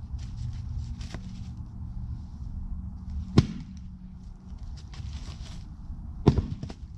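Firewood being struck and split: two sharp cracks about three seconds apart, the second followed quickly by a lighter one, over a steady low rumble.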